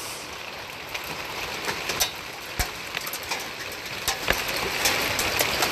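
Hailstorm: a steady hiss of hail on pavement, with irregular sharp clacks of large hailstones pounding on metal steps.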